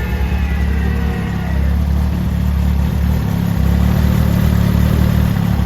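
A vehicle engine running steadily at idle with a low drone. A fainter higher whine fades out in the first second and a half.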